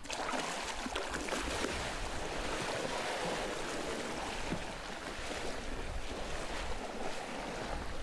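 Steady rush of open-sea water and wind, the sea sloshing and washing over the back of a surfacing southern right whale.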